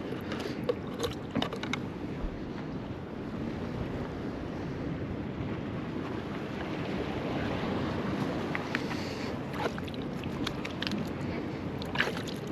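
Wind on the microphone over waves washing against the jetty, a steady rushing noise, with a few light clicks and knocks scattered through it, mostly near the start and toward the end.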